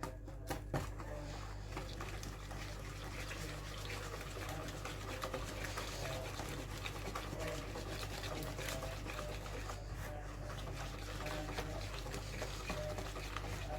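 A utensil stirring a wet cheesecake filling in a bowl: continuous soft scraping and sloshing with many small clicks against the bowl, over a low steady hum.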